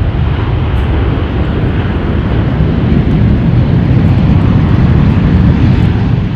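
Aircraft engine noise from a fixed-wing military plane: a loud, deep rumble that slowly builds to a peak and begins to fade near the end, as the aircraft passes.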